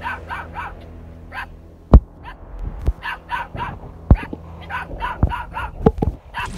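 Puppy yipping in quick runs of three or four short, high-pitched barks, repeated several times. A few sharp knocks come in between, the loudest about two seconds in.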